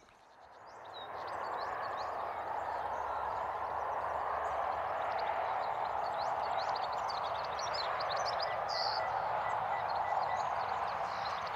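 Outdoor rural ambience fading in over the first second or two: a steady rushing noise with many birds chirping high above it.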